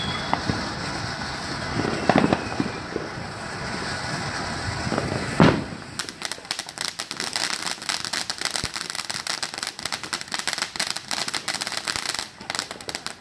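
Ground fountain firework hissing as it sprays sparks, with two loud pops about two and five and a half seconds in. From about six seconds it breaks into dense, rapid crackling.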